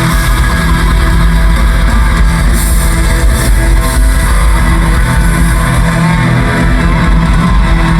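Live heavy rock band playing loud: distorted electric guitars over heavy bass and drum kit, a dense unbroken wall of sound.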